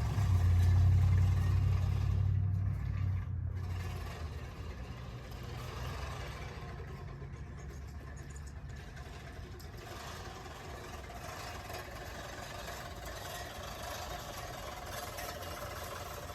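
A low engine-like hum, loudest in the first few seconds and then fading, over the steady whirr and clatter of a push reel mower's spinning blades cutting grass.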